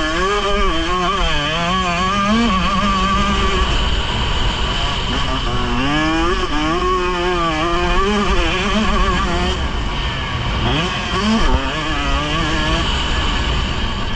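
Motocross motorcycle engine revving, its pitch rising and falling over and over with the throttle as the bike is ridden hard over dirt, heard from a camera on the bike with heavy wind rumble on the microphone.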